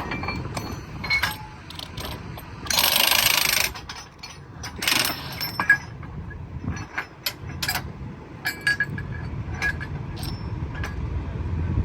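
Track workers' tools on the steel of a railroad diamond crossing: scattered sharp metallic clanks and ringing taps, with a loud rushing burst lasting about a second near three seconds in and a shorter one about two seconds later, over a low engine rumble that grows toward the end.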